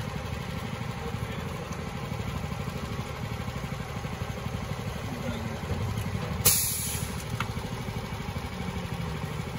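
An engine idling steadily with a fast, even pulse, interrupted once past the middle by a brief, sharp noise.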